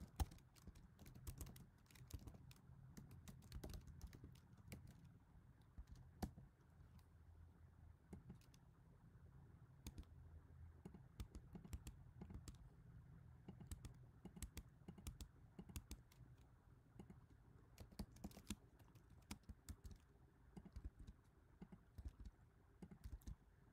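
Computer keyboard being typed on: faint, irregular key clicks in quick runs with short pauses, over a faint steady low hum.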